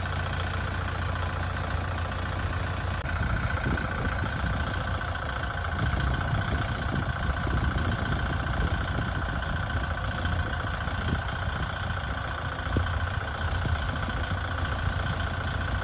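A motor running steadily, with a constant low hum and a steady high whine over it and no change in speed.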